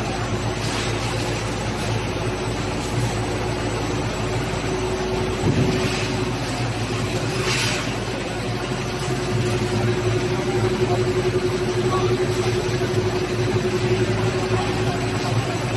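HDPE blown-film extrusion line running: a steady machine hum with a held tone from its motors and drives. A few short hisses and a single thump about five and a half seconds in.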